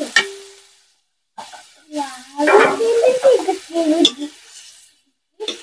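Chopped tomatoes tipped from a steel plate into a steel kadhai of frying curry. The plate clinks on the pan and rings briefly, then a steel spatula scrapes and stirs while the oil sizzles. The sound cuts out twice for a moment.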